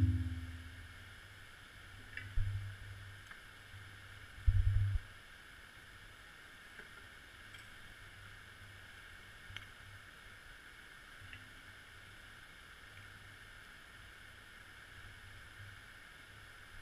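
Muffled underwater sound picked up by a GoPro in its waterproof housing: a steady hiss with dull low thumps, the loudest right at the start and two more within the first five seconds.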